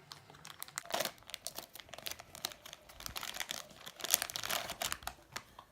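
Crinkly plastic packaging of a mystery toy figure being crumpled and torn open by hand, with many quick irregular crackles.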